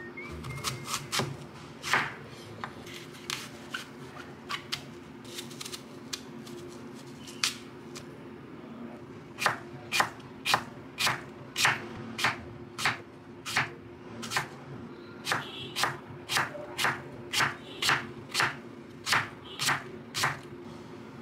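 Chef's knife cutting through an apple and knocking on a wooden cutting board: a few scattered cuts at first, then a steady run of thin slices, nearly two a second, from about halfway through.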